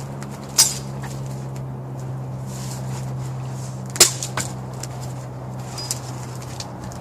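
Small choke cherry branches snapping as they are broken and folded by hand: two sharp cracks about half a second and four seconds in, with a few lighter snaps between, over a steady low hum.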